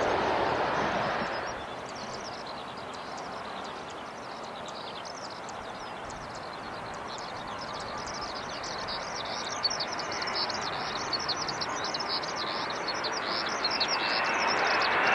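Jet airliner noise fading away over the first second or two. Then a quieter steady rush of airport noise, with small birds chirping rapidly from about seven seconds in. Aircraft noise swells again near the end.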